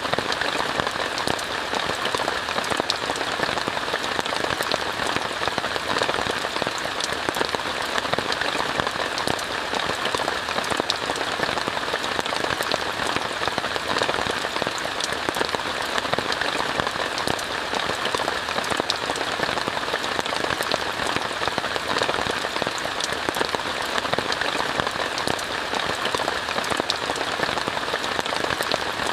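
Steady rain falling on a tent, heard from inside, with many sharp drop impacts over an even hiss.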